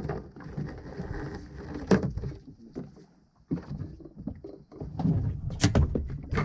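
Small open fishing boat at sea: water against the hull and irregular knocks and bumps in the boat as a hooked fish is brought alongside, with a sharp knock about two seconds in and another, louder one near the end.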